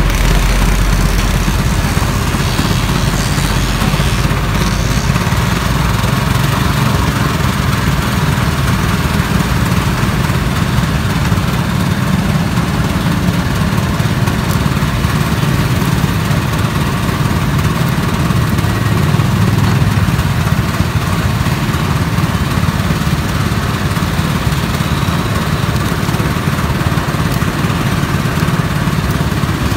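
Motor-driven stainless-steel sugarcane juicer running steadily as whole cane stalks are fed into it and crushed.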